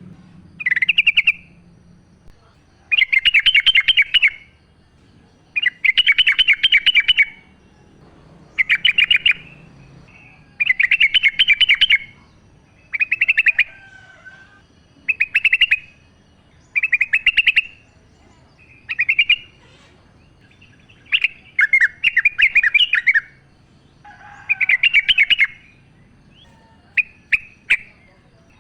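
Yellow-vented bulbul singing: short bubbly, chattering phrases about a second long, repeated roughly every two seconds with brief pauses between.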